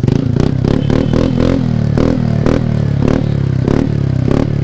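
TVS Ntorq single-cylinder scooter engine running through an aftermarket exhaust on a bend pipe, idling steadily and blipped over and over with short, sharp throttle stabs.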